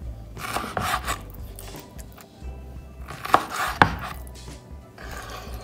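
Knife cutting raw beef lung into large pieces: repeated slicing strokes, with two sharp knocks about three and a half seconds in.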